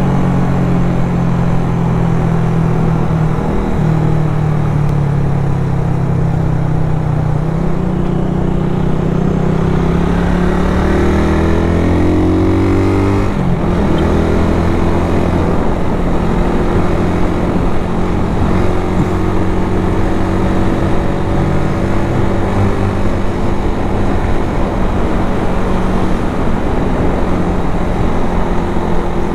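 Motorcycle engine running under way over a steady rushing noise. Its note climbs from about eight seconds in, drops suddenly about five seconds later, then holds steady.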